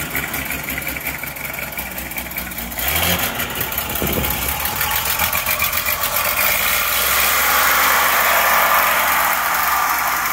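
1969 Chevrolet C50 truck's engine idling steadily. It gets louder about three seconds in.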